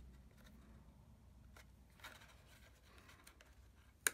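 Faint rustling and rubbing of cardstock being handled and pressed into place, with one sharp click near the end.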